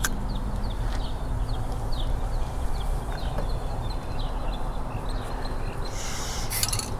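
Outdoor background with a steady low rumble and small birds chirping again and again. Near the end come a run of sharp clicks and rubbing noise.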